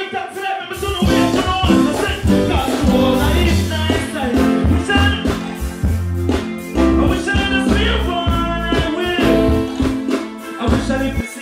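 Live music over the stage sound system, with a man singing into a microphone over the backing track; a heavy bass line comes in about a second in.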